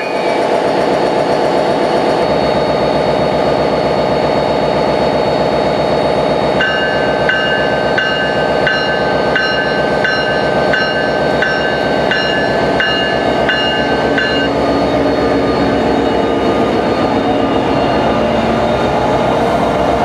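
NJ Transit PL42AC diesel-electric locomotive's 16-cylinder EMD 710 engine running steadily as the train creeps past at close range. Around the middle a bell rings for several seconds, about one and a half strokes a second.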